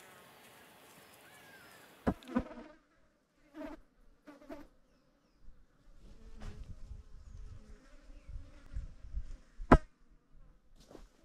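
Flies buzzing in short passes close to the microphone at a carcass, with a few sharp clicks, the loudest near the end, and low wind rumble on the microphone.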